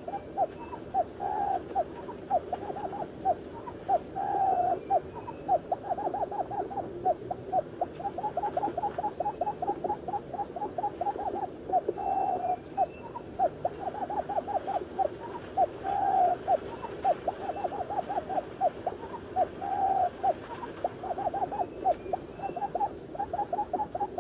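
Puyuh kebun quail call, the sound a trapper uses to lure the bird to a snare: a fast, unbroken run of short, low hooting notes, about five a second, with a longer drawn note every few seconds.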